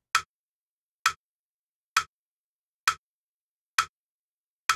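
Crotchet beat pulse: six evenly spaced sharp clicks, a little under a second apart, counting in the tempo before a violin extract starts.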